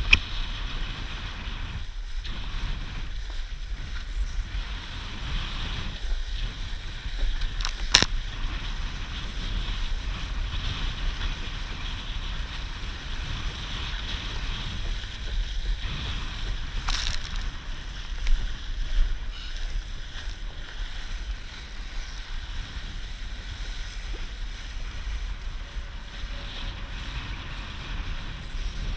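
Wind buffeting the microphone of a deck-mounted GoPro, over water rushing and splashing against the hull of a Laser dinghy sailing fast in strong wind. A few sharp knocks stand out: at the start, about eight seconds in and about seventeen seconds in.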